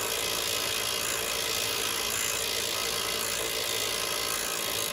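Badland 2000 lb 12-volt electric winch running steadily, its motor and gearing winding the wire rope.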